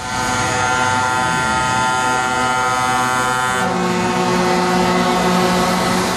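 Show trucks' air horns blowing a long, sustained multi-note chord as a truck drives past, the chord shifting to a lower note a little past halfway.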